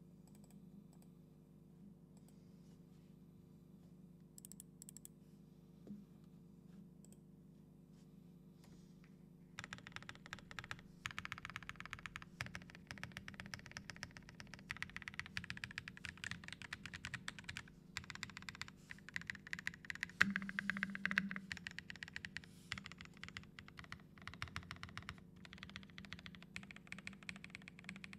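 Typing on an Ikki68 Aurora transparent mechanical keyboard with lubed Tecsee Ice Candy switches and Lelelab Crystal transparent keycaps. A few faint stray key taps at first, then fast, continuous key clacks from about ten seconds in.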